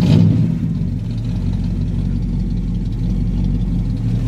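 Ford 460 big-block V8 just started and settling into a steady idle, slightly louder in the first second. It runs smoothly, with not a rattle.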